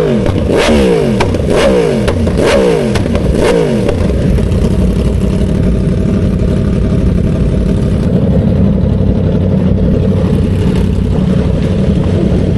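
Motorcycle engine revving in about five quick throttle blips, the revs falling away after each one, over the first four seconds. After that the engine runs steadily under road and wind noise.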